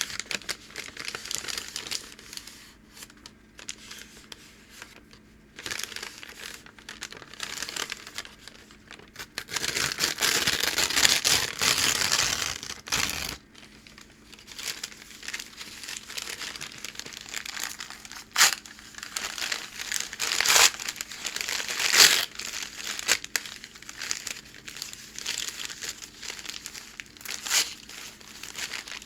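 Packing paper handled by hand, crinkling and crackling throughout. About ten seconds in there is a louder, continuous stretch of rustling and tearing lasting some three seconds, and later a few sharp single crackles stand out.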